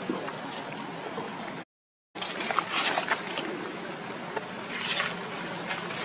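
Dry leaves rustling and crackling in short bursts over a steady outdoor background hiss, most clearly about two and a half to three seconds in and again near five seconds in. The sound drops out entirely for about half a second near two seconds in.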